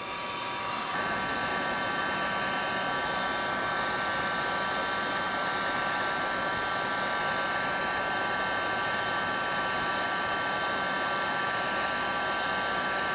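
Electric hot-air blower running steadily: an even rush of air with a steady whine that rises a step about a second in, heating plastic to make it soft and pliable.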